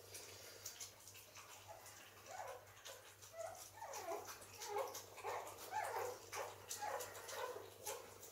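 Pekingese puppies whining and yipping: a string of short squeals that slide up and down, coming thick and fast from about three seconds in, with faint clicking and smacking of dogs eating underneath.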